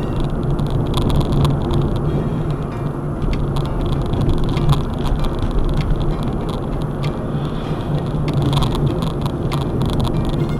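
Car driving along a highway: steady engine and road noise, with scattered light clicks or rattles.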